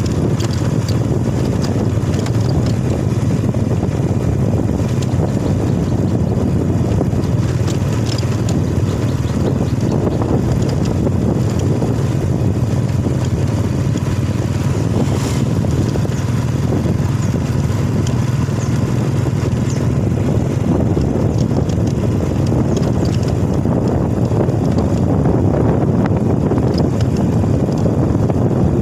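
Motorcycle engine running steadily while riding, with wind noise on the microphone. A brief click about halfway through.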